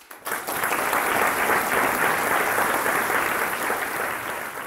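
Audience applauding. It breaks out all at once just after the start, holds steady, and eases slightly near the end.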